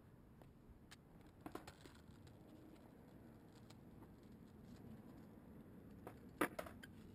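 Nearly quiet: a faint rumble of kick-scooter wheels rolling on concrete, growing slightly louder toward the end, with a few light ticks early on and one sharper click about six and a half seconds in.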